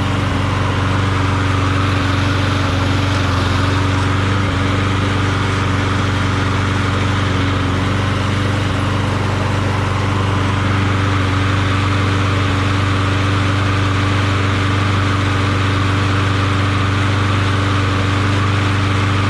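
Briggs & Stratton Quantum single-cylinder engine on a Craftsman walk-behind mower running at a steady speed, smooth with no knocking. The swapped-in engine is running well.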